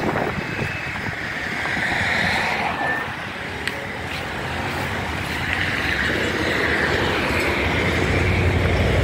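Road traffic: cars passing on the road, tyre and engine noise swelling and fading, with a lower engine rumble building near the end as a vehicle approaches.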